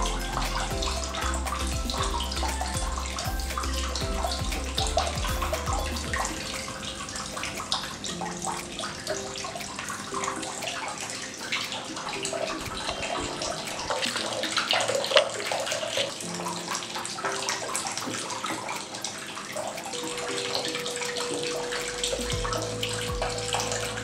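Water from a small tabletop rock waterfall fountain trickling and splashing steadily into its basin.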